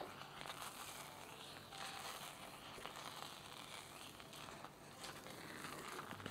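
Silicone spatula stirring and folding thick, sticky orange paste in a saucepan, faint wet scraping with many small clicks. The paste is being cooked down until it thickens.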